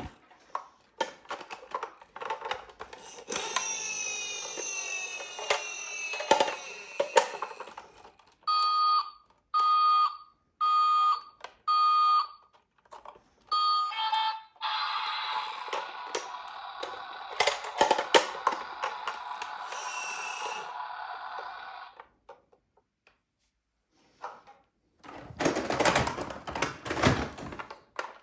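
Electronic sound effects from toy emergency vehicles: falling pitch sweeps, then five electronic beeps about a second apart, then a steady buzzing tone lasting several seconds. Clicks and knocks of hard plastic toys come in between.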